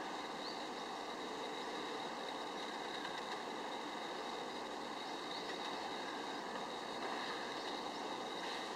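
Steady outdoor background noise: an even hum and hiss with a faint steady high tone and a few faint, short high chirps scattered through it.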